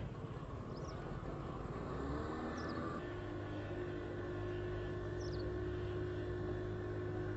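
An engine running, rising in pitch about two seconds in and then holding a steady speed; it cuts off suddenly at the end.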